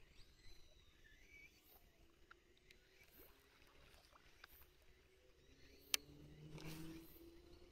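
Near silence: faint outdoor ambience with a few soft high chirps, a single sharp click about six seconds in and a short rustle right after it.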